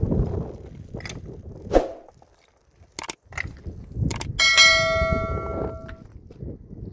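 Several sharp knocks amid handling noise, then a metal object struck once, ringing with a clear tone that fades over about a second and a half.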